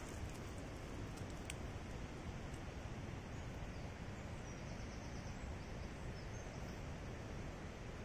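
Steady woodland background noise, heaviest in the low end, with a few light clicks in the first second or so. About halfway through, a faint high bird trill of quick repeated notes.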